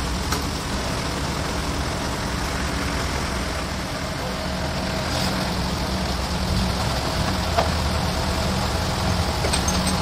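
Toyota 3.5-tonne forklift's engine running steadily as it holds a large log against the sawmill carriage, with a sharp knock about seven and a half seconds in.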